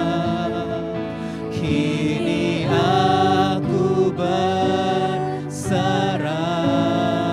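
Live worship band performing a slow Indonesian worship song: several singers at microphones over keyboard and acoustic guitar, the voices holding long notes.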